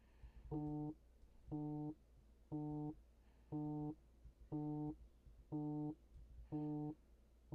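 Online fantasy football draft room's pick-clock warning beeps, one short electronic beep each second as the user's pick timer runs down its final seconds.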